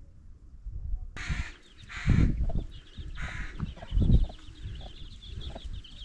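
Crows cawing: three short, harsh calls about a second, two seconds and three seconds in. Wind buffets the microphone underneath, with two loud gusts.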